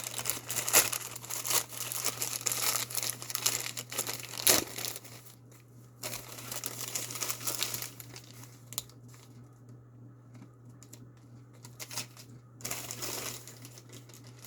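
Packaging being torn and crinkled by hand as a mailed parcel is unwrapped. It comes in crackly spells with quieter pauses between, over a low steady hum.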